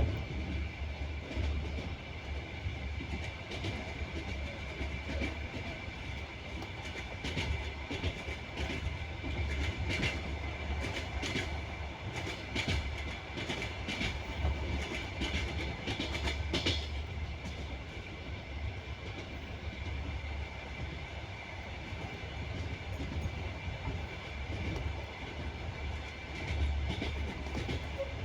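Passenger train running along the track, its wheels clattering over rail joints over a steady rumble. A thin steady high tone runs through it, and the clatter is busiest between about 8 and 17 seconds in.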